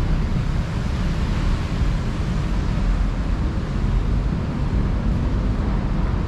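Steady road-traffic noise from a busy multi-lane city street below: a low, even rumble with no single event standing out.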